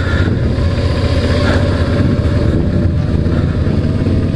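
Suzuki V-Strom 650's V-twin engine running steadily at low revs as the motorcycle rolls slowly.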